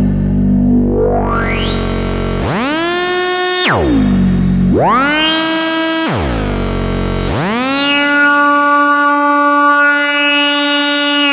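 Musonics Vanilla 5U modular synthesizer playing a single buzzy, overtone-rich voice. The pitch swoops up from low into a held note and dives away again, three times over, and the last note holds steady and bright.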